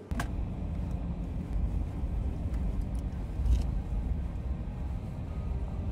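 Steady low rumble of road and engine noise from a moving vehicle, heard from inside it, starting abruptly with a click just after the start.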